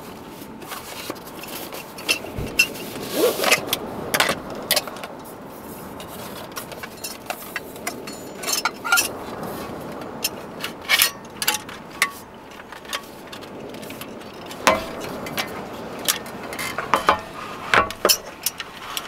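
Handling of a compact portable butane stove: its hard cylindrical carry case opened and the folding metal stove parts taken out and unfolded, giving scattered sharp clicks, clinks and knocks. A steady hiss runs underneath.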